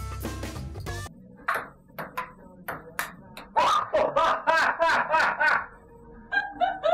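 A table-tennis ball clicking back and forth off paddles and table, about five quick hits, then loud laughter from about three and a half seconds in.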